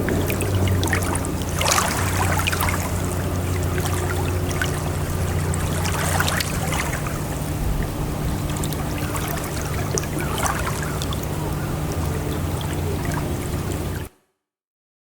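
Sea water splashing and washing, with irregular splashes over a steady low hum. The sound cuts off suddenly near the end.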